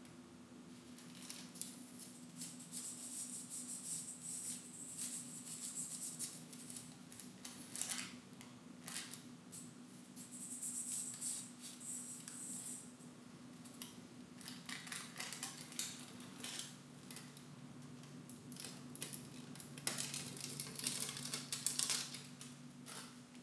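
Gold leaf and its backing paper being handled and laid on: light rustling, crinkling and snip-like clicks in irregular bursts, over a steady low hum.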